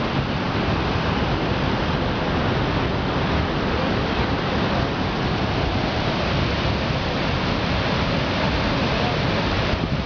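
Upper Yosemite Fall's water pouring over the brink close by, a steady, even rush of noise.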